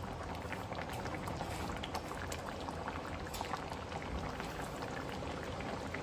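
Thick masala gravy of coconut and onion paste bubbling at a boil in a frying pan: a steady hiss with many small, irregular pops.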